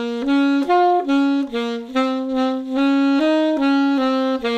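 Alto saxophone playing a slow line of separately tongued, evenly pulsed notes, each quaver of a 6/8 phrase sounded on its own to mark the count.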